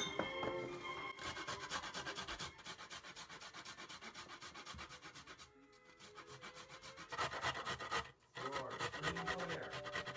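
Rapid scraping strokes of a wooden utensil stirring a thick paste in a glass jar, pausing twice.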